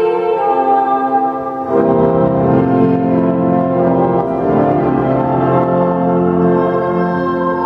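Church organ playing slow held chords, with deeper bass notes coming in about two seconds in and filling out the sound.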